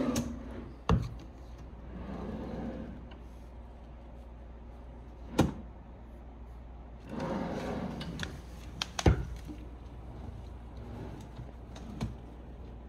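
A few separate sharp knocks and clicks, about four spread out, with soft swishing sounds between them, of the kind made by doors or drawers being handled.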